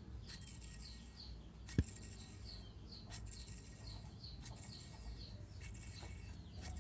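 Small bird chirping over and over in short high calls, about two a second, over a low steady rumble; one sharp knock about two seconds in.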